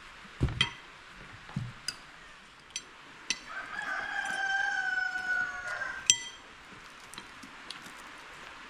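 A rooster crows once in the middle, one long call of about two and a half seconds that falls slightly at the end. Around it come a few knocks and sharp clicks from the table as crisp flatbread is broken and handled; the loudest is a sharp click just after the crow.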